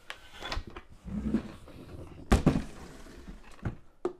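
Plastic spreader hopper and steel frame parts being handled and set down on a cardboard box: scattered knocks and clunks, the loudest one a little over two seconds in, with a couple of lighter clicks near the end.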